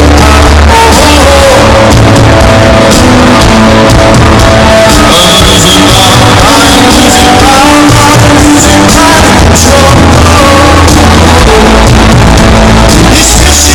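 Rock band playing live and loud, with a lead singer's voice over guitars, bass and drums.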